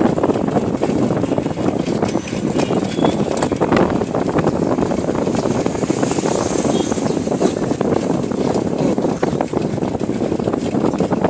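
Steady wind rush on the microphone of a moving bicycle, over the general noise of street traffic.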